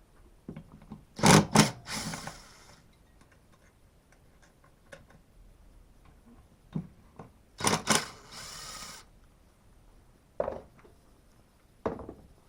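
Hand tools working on a chainsaw's ignition coil screws: two bouts of sharp metallic clicks, each followed by about a second of rasping as a T27 Torx screw is undone, then two single knocks near the end as parts are set down.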